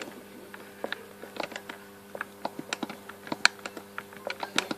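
Quick, irregular clicks, a few a second, from working a game's inventory and equipment menus with an Xbox 360 controller.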